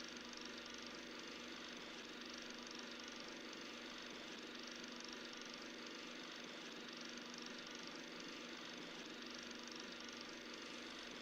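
Old film projector running as a sound effect: a steady whirr with constant humming tones and no change.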